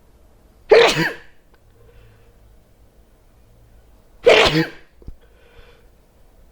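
A person sneezing loudly twice, each sneeze a sharp burst of about half a second, the second coming about three and a half seconds after the first.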